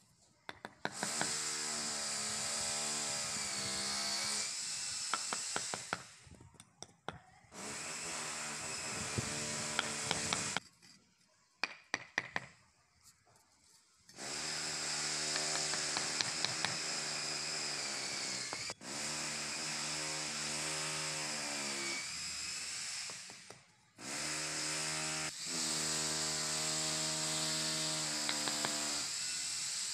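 A power tool runs in stretches of several seconds, stopping and starting again, its pitch sagging as it is loaded. In the pauses come a few light taps of a hammer setting clay paving bricks.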